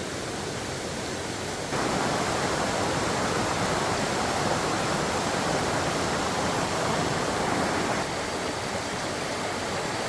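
Steady rushing of water, with no distinct strokes. It gets abruptly louder a couple of seconds in and drops back a little near the end.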